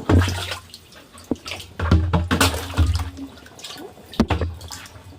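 Water splashing and pouring in a few bursts as small tilapia are released with their own muddy pond water.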